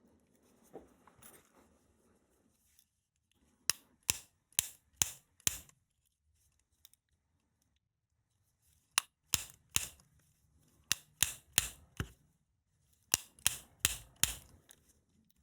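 Three runs of sharp hammer blows on a lock whose core has jammed in its trap position, about two to three strikes a second with pauses between the runs: the lock is being knocked back out of the locked trap position.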